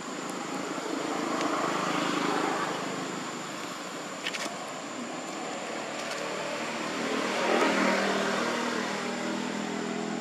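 Motor vehicle passing by: engine and road noise that swells and fades twice, about two seconds in and again near eight seconds, over a thin, steady high tone.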